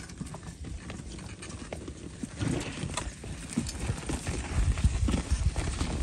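Cattle pulling a hand-guided plough through soil: irregular thuds and crunches of hooves, footsteps and turned earth, growing louder in the second half.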